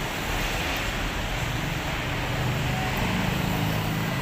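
Steady motor-vehicle rumble, its low engine hum swelling from about a second and a half in.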